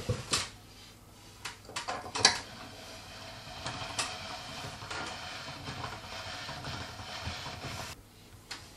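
Hand-cranked pasta machine: a few sharp clicks and knocks, then the crank turned steadily for about five seconds as the dough is rolled through the steel rollers, stopping near the end.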